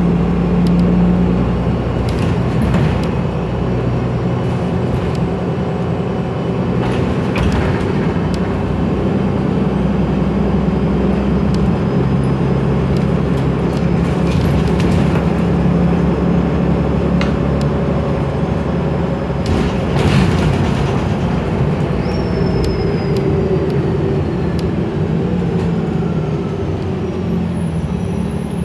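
Inside a moving city transit bus: the engine and drivetrain hum steadily under road noise from the tyres. Scattered clicks and rattles come through now and then.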